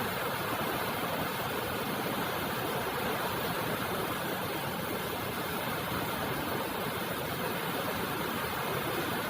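Steady rain falling, an even hiss with no pauses, no separate drops standing out and no thunder.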